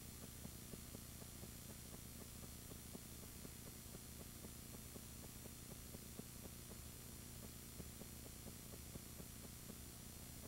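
Near silence: a faint steady hum and hiss with light scattered crackle, the background noise of a soundless home-movie transfer.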